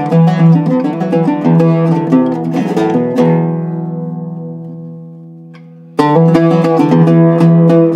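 Iraqi-style Zeryab oud with a cedar top and walnut back, plucked with a pick: a run of quick picked notes, then one note left to ring and fade for about three seconds, before fast picking starts again suddenly near the end.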